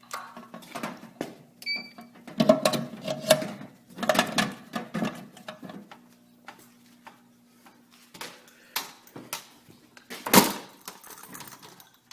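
Irregular clicks, knocks and handling noises, with a brief beep about two seconds in and a louder knock near the end, over a faint steady hum.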